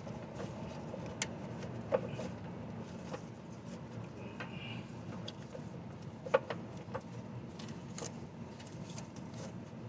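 Scattered light clicks and knocks as a serpentine belt is worked by hand around the alternator pulley and nearby engine parts, the sharpest about six seconds in, over a steady low hum.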